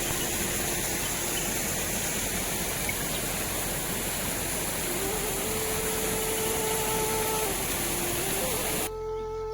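Steady loud rushing noise of water, with soft flute music faintly underneath; the rushing cuts off suddenly near the end.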